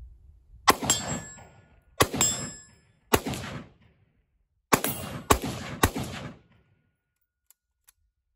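AR-15 rifle firing six shots, the first three about a second apart and the last three quicker. The rifle is feeding and cycling from a polymer magazine that has just been drop-tested, with no malfunction.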